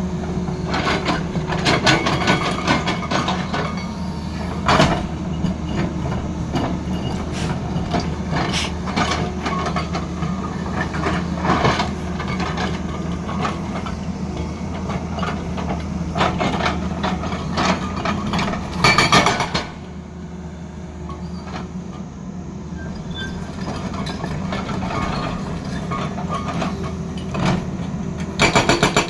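Tata Hitachi excavator's diesel engine running steadily, with scattered clanks and knocks from the machine working stone. A brief burst of rapid hammering comes about two-thirds of the way in, and near the end a hydraulic rock breaker starts hammering at about four blows a second.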